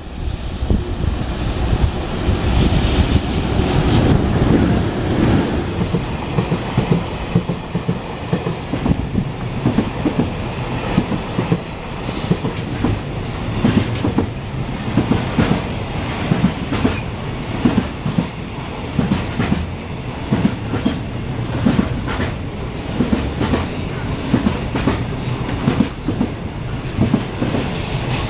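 Freight train of container wagons running through the station at speed: a heavy rumble with a steady clickety-clack of wheels over rail joints, and brief high-pitched wheel squeals about twelve seconds in and again near the end.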